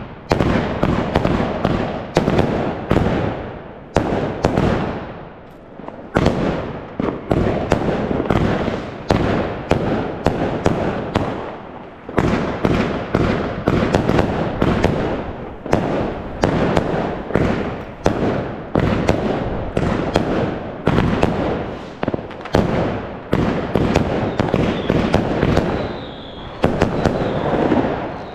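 Fireworks and firecrackers going off all around in dense, overlapping volleys: sharp bangs several times a second over continuous crackling and rumbling. A short high whistle comes near the end.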